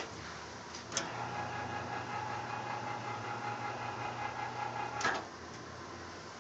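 A sharp click, then the electric drive motor of a rotating-rack (rotisserie) barbecue smoker runs with a steady hum for about four seconds, turning the racks round, and stops with a clunk.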